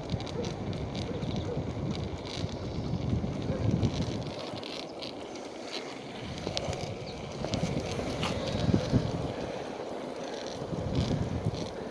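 Longboard wheels rolling and rumbling over pavement, with wind noise on the microphone while riding.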